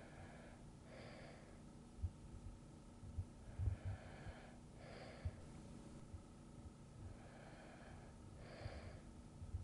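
Soft, slow breathing of a person asleep: three breaths about four seconds apart, each a longer faint phase followed by a shorter, stronger one. Short low thumps sound now and then, the loudest partway through, over a faint steady hum.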